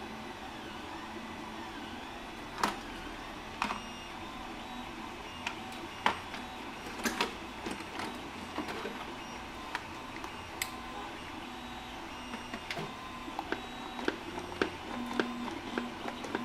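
Scattered sharp clicks and knocks of a plastic 1/16 scale RC truck (WPL B36 Ural) being handled and turned over by hand, its body, suspension and wheels rattling, over a steady background hum.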